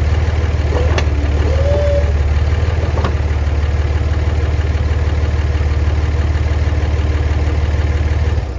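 Vehicle engine idling steadily, with sharp clicks about one and three seconds in, then shut off near the end so the hum dies away quickly.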